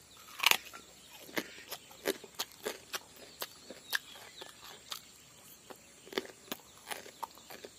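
Mouth sounds of someone chewing a piece of pumpkin: a run of irregular smacks and clicks, two or three a second, the loudest about half a second in.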